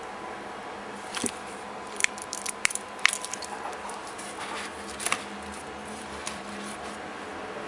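Keys of a Bluetooth silicone keyboard being pressed: a few soft, irregular taps with pauses between them.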